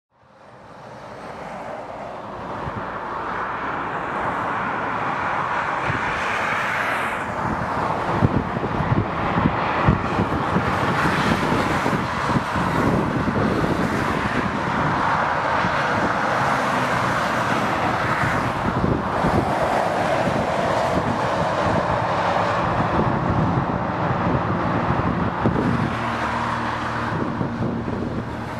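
Motorway traffic rushing past, fading up from silence over the first few seconds, with the sound swelling and easing as single cars and lorries go by. A low, steady humming tone comes in near the end.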